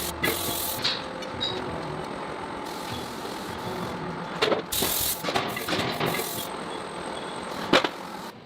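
Heavy forge machinery running as a steady industrial din, with a series of sharp metallic clanks and knocks, several around the middle and the loudest near the end.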